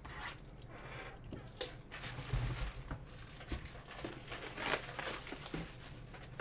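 Plastic wrapping being crinkled and torn open on a sealed box of trading cards, with continuous crackling and small snapping clicks.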